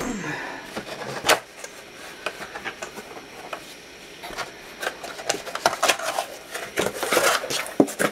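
Corrugated cardboard packaging handled with both hands: flaps and folded inserts rubbing and scraping, with scattered taps and a denser run of louder scrapes about seven seconds in.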